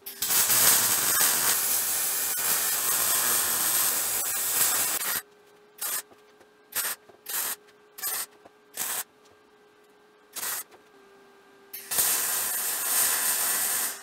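MIG welder arc crackling and sizzling as steel is welded: a continuous run of about five seconds, then six short tack-weld bursts, then another two-second weld near the end. A faint steady hum lies under the gaps.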